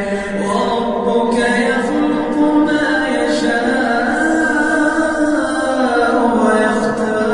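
Male voice in melodic Quran recitation, held on long drawn-out notes that slide from pitch to pitch without a break.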